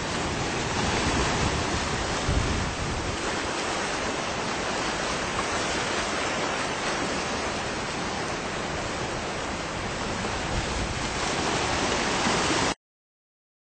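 Rough sea surf and strong coastal wind on the microphone, a steady rushing noise that cuts off suddenly near the end.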